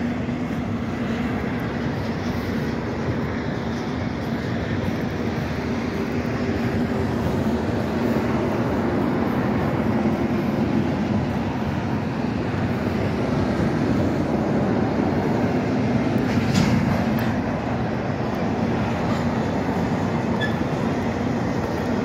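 Double-stack container train's cars rolling past: a steady, continuous noise of steel wheels on rail.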